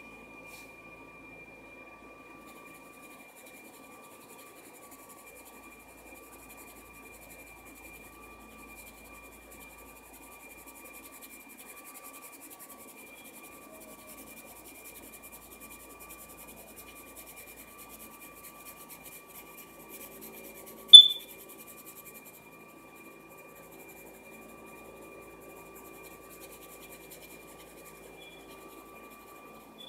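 Colored pencil shading on paper: faint, quick scratching strokes under a faint steady high whine. About two-thirds of the way through, a single short, sharp high-pitched blip is the loudest sound.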